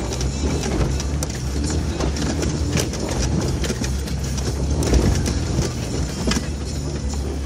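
Off-road vehicle crawling up a rocky track, heard from inside the cab: a steady low engine note with frequent knocks and rattles as the tyres and suspension work over rocks.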